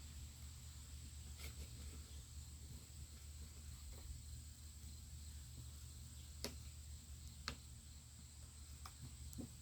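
A few faint, sharp clicks and knocks of plastic raised-garden-bed panels being handled and fitted together, the clearest two about a second apart past the middle, over a steady low hum.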